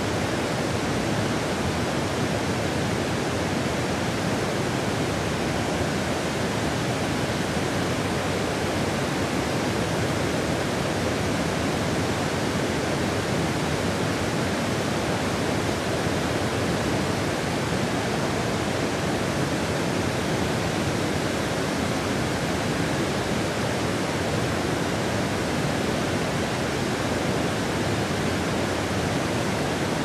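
Broad, low waterfall pouring over a long rock ledge into a river, running at somewhat low flow: a steady, even rush of falling water that does not change.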